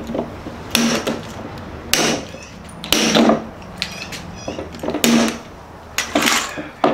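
Hand pop-rivet tool setting aluminum rivets through a plastic vent into a door panel. There is a series of sharp clacks and snaps, roughly one a second, as the handles are squeezed and the mandrels break.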